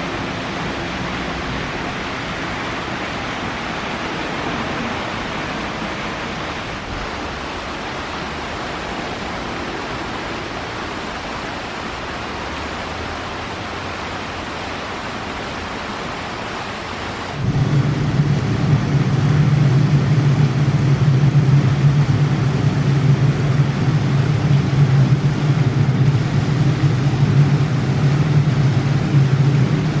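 Steady splashing rush of fountain water jets falling into the basin. A little past halfway a loud, steady low mechanical hum starts suddenly and becomes the loudest sound, running over the water.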